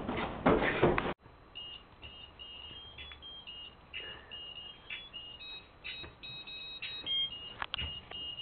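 Loud music cuts off abruptly about a second in. It gives way to a faint tune of short, high electronic beeps that hop between a few pitches, with a few clicks among them.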